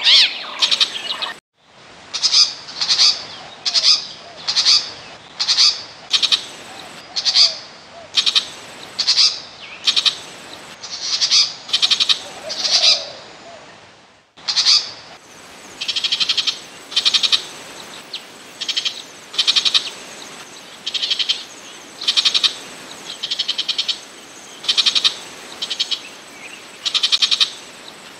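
Burmese shrike calls played as a trapping lure: short, buzzy call notes repeated steadily a little faster than once a second, broken by two brief gaps where the looped recording restarts.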